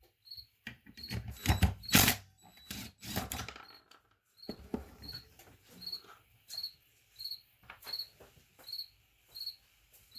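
Metal clanks and knocks of tools working the bolts off a lawn tractor's clutch cover, loudest in the first few seconds. After that a cricket chirps steadily about every two-thirds of a second, with light clicks of the work in between.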